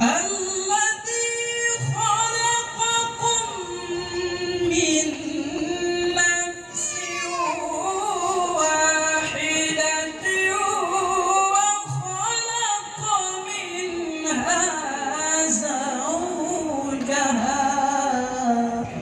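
A male qari reciting the Quran in the melodic tilawah style, amplified through a microphone. He sings long held phrases in a high register, with wavering, ornamented turns of pitch.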